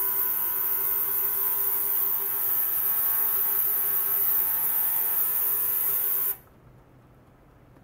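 Ultrasonic cleaner (40 kHz, 100 W) running with water in its tank: a steady high hiss with a buzzing hum, cutting off suddenly about six seconds in as the cleaner stops.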